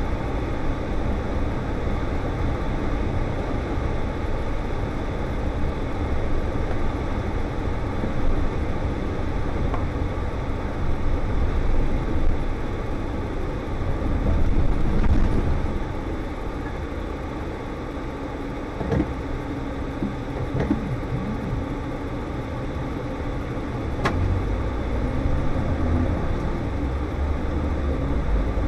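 Interior cab sound of a Scania S520 truck on the move: the V8 diesel engine and road noise run steadily, swelling and easing a few times as the truck slows for and turns at a roundabout. A single click sounds about two-thirds of the way through.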